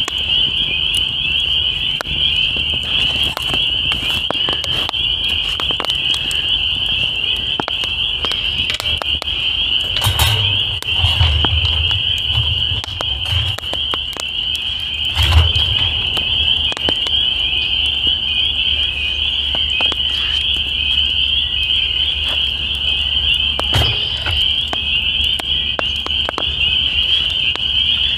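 A dense chorus of frogs calling from the pond, a steady high-pitched shimmer that never lets up. About ten to sixteen seconds in come a few knocks and clatters as the wire grill grate is set down over the coals.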